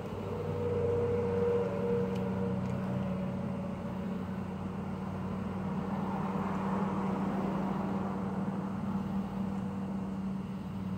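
A steady low mechanical hum, like an engine or motor running, that swells for a few seconds around the middle.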